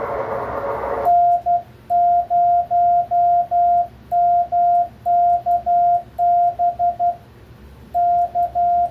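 Morse code being sent by hand on a Bencher keyer, heard as the radio's CW sidetone: a single steady tone of about 700 Hz keyed in dits and dahs, in groups with short pauses, starting about a second in. Before it, radio receiver hiss cuts out as keying begins, the receiver muted in break-in mode.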